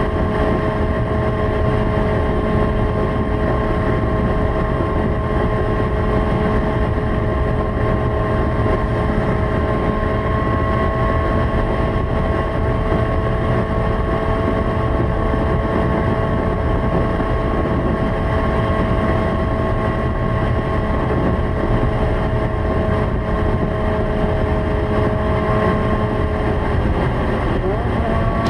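Honda CBX 750F's inline-four engine held at steady high revs at sustained high speed, one even note, dropping slightly in pitch near the end.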